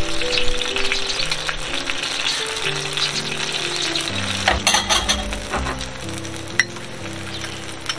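Pork belly sizzling and spattering in a hot grill pan, a dense crackle of fine pops, with a few clicks about halfway through. Background music with held notes plays underneath.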